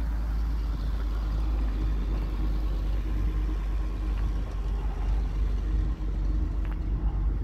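1983 GMC 6500 grain truck's gasoline engine idling steadily.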